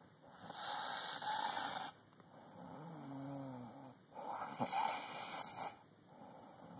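A woman snoring in her sleep: two loud, noisy snores about four seconds apart, each lasting around a second and a half.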